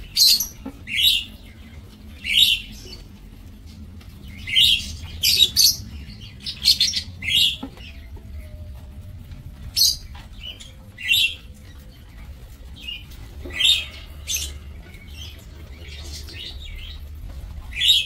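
A flock of lovebirds giving short, shrill, high chirps, one or a few at a time with pauses between, busiest about five and seven seconds in.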